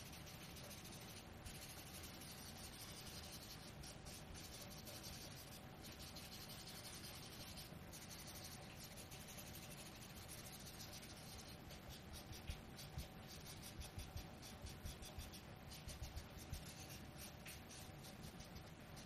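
Folded cotton pad rubbing pastel powder onto paper: a faint, soft scrubbing. It turns into quicker, denser back-and-forth strokes in the second half.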